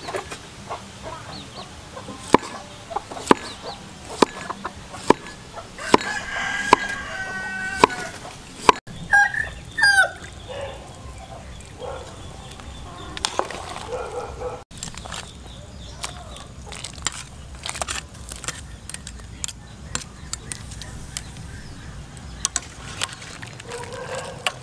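A knife chopping on a wooden cutting board, about one sharp stroke a second, with chickens clucking and crowing in the background. In the second half there are lighter clinks of a metal ladle stirring in a pot of soup.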